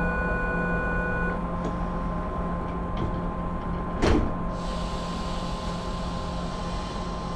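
The sliding doors of a Z 5300 electric commuter train slam shut with one loud bang about four seconds in. Under it the standing train gives off a steady hum with tones, two of which cut off after about a second.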